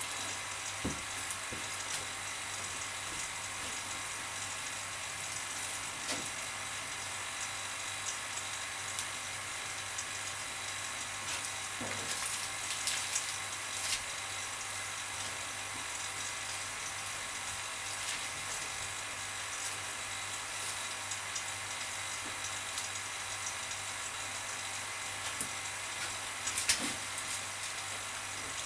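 Steady hiss and hum of a vacuum pump drawing down a resin-infusion bag over a carbon-fibre layup, with occasional crinkles and clicks of the plastic bagging film being pressed into place by hand, a cluster of them about 13 seconds in and again near the end.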